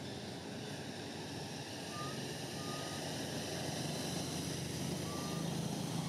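An engine running steadily, its low hum growing louder toward the end, with three short high peeps.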